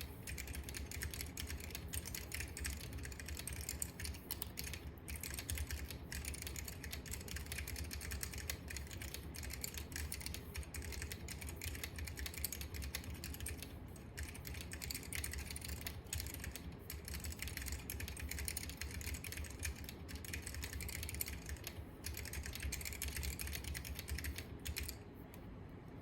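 Fast, continuous typing on a Unikorn mechanical keyboard with Alps SKCM Orange tactile switches: a dense patter of key clicks that stops about a second before the end.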